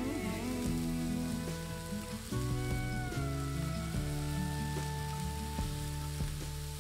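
Zucchini, bell pepper and carrot strips sizzling in a frying pan, a steady crackling hiss, under background music with sustained notes.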